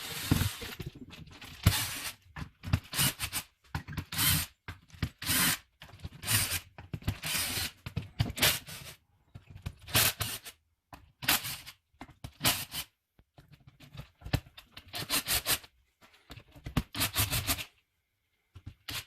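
A power tool spinning bolts out of a Peerless 206-565 transaxle case, in about a dozen short bursts with brief pauses between bolts.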